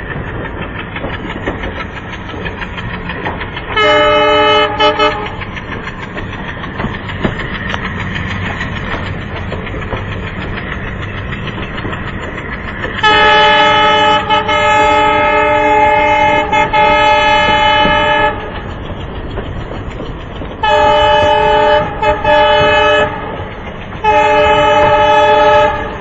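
WDM-3A diesel locomotive's air horns sounding, heard from a coach of the train it hauls: a short blast about four seconds in, a long blast of about five seconds in the middle, then several shorter blasts near the end. Beneath them runs the steady rumble and clickety-clack of the coaches on the rails.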